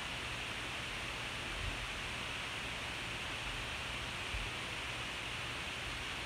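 Steady background hiss with a faint low hum beneath it: the noise of a poor recording.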